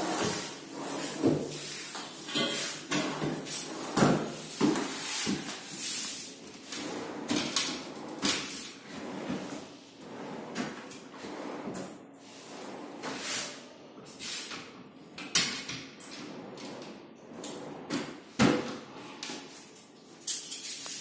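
Office desk drawers and a pull-out keyboard tray being slid open and pushed shut again and again, with sliding noises from the runners and sharp knocks as they close.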